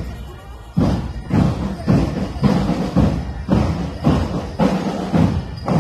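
Military academy marching drum band playing, its heavy drums striking a steady beat about twice a second. The beat comes in strongly about a second in, after a brief lull.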